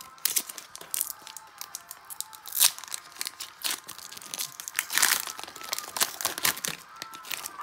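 Foil wrapper of an Upper Deck Credentials hockey card pack crinkling and tearing as it is ripped open by hand, in irregular crackles, with louder bursts about two and a half and five seconds in.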